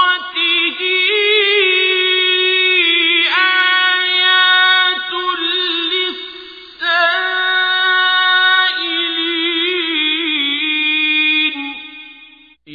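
Quran recitation in Arabic, chanted in the melodic tajweed style: one voice holding long, ornamented notes, with a brief break about seven seconds in and a fade near the end.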